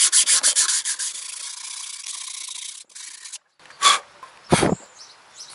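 Sandpaper rubbing by hand inside the bore of a boat's P-bracket, smoothing it for a new cutlass bearing: quick back-and-forth rasping strokes that ease off after about a second and stop about three seconds in. Two sharp knocks follow near the end.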